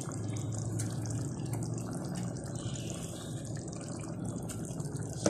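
Chicken and chickpea curry simmering in a pan: a steady bubbling with many small pops. A short sharp knock comes right at the end.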